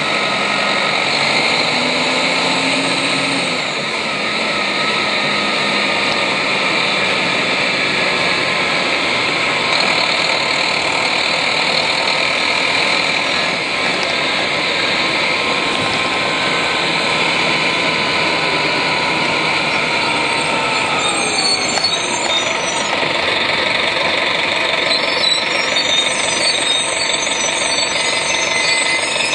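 A 1996 Nova RTS transit bus's Detroit Diesel Series 50 four-cylinder diesel and Allison transmission running under way, heard from on board. The drive noise is steady, with a whine that glides down in pitch about two-thirds of the way through.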